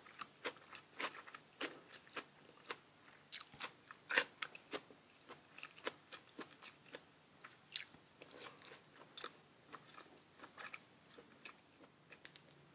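A person chewing crunchy food close to the microphone: a string of sharp, irregular crunches that thins out near the end.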